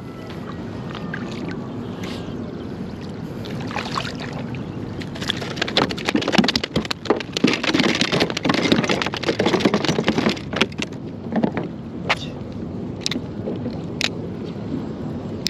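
Water sloshing and gurgling against a kayak's hull as it moves through the bay, with a louder, busier run of splashes and knocks from about five to eleven seconds in.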